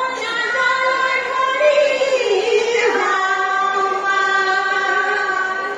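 A woman singing long held notes; about halfway through, the note slides down and is held again.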